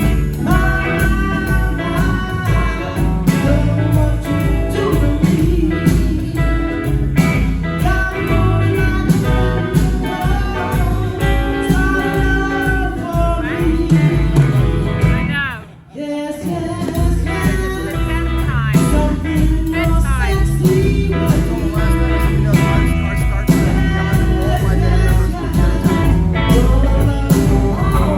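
Live rock band playing with singing, guitar and a steady drum and bass beat; the music breaks off briefly about halfway through, then comes straight back in.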